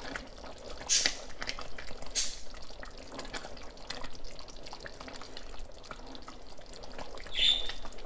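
Wooden spoon stirring a simmering split red lentil stew in a pot: wet sloshing and bubbling, with irregular clicks of the spoon against the pot, louder about one and two seconds in.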